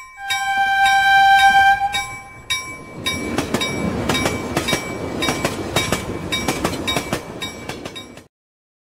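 A train horn sounds a steady two-pitched blast for about two seconds. Then a passing train's wheels clatter over the rail joints in a dense run of clicks, which cuts off suddenly near the end. A thin, steady, high ringing tone runs underneath throughout.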